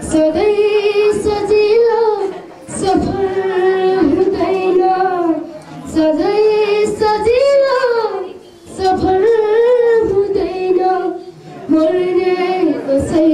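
A boy singing solo into a handheld microphone, with no accompaniment heard. He sings about five phrases of roughly two to three seconds each, holding wavering notes and pausing briefly for breath between them.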